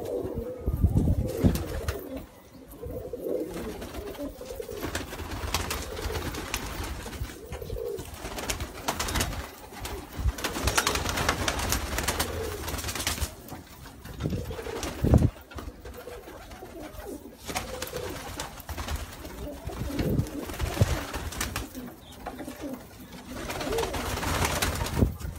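Several Trakya makaracı pigeons cooing on and off, with scattered rustling and one louder thump about fifteen seconds in.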